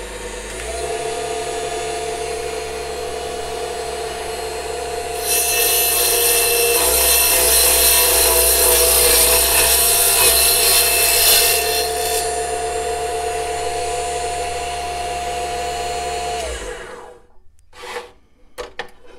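Mini benchtop table saw's small motor starting and running with a steady tone. About five seconds in the blade bites into a piece of hardwood, a loud high hiss of cutting for about seven seconds, then the motor runs free and winds down when switched off about sixteen seconds in. A few light knocks follow near the end.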